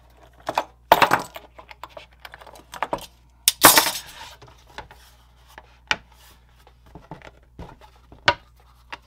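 Workbench handling sounds: a steel rule clinking and scraping on the board, loudest about three and a half seconds in, when it is lifted and set aside. Near the end comes a sharp click as the scribed styrene sheet is bent and snapped along the score line.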